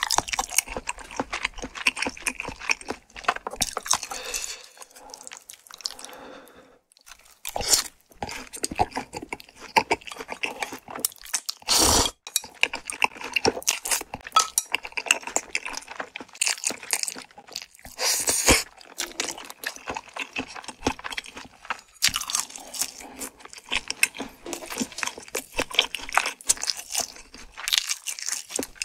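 Close-miked eating of spicy tteokbokki with chewy rice cakes and glass noodles: dense, irregular wet chewing and lip-smacking mouth sounds, twice louder for a moment.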